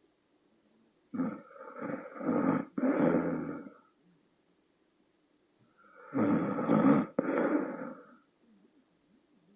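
Snoring of an exhausted woman of around forty: two snores about five seconds apart, each broken into several short pulses, the first starting about a second in and the second around six seconds in.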